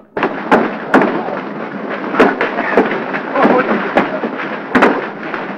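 A fistfight in a crowd: a string of sharp punch impacts, about eight in all and irregularly spaced, over the shouting and scuffling of many men.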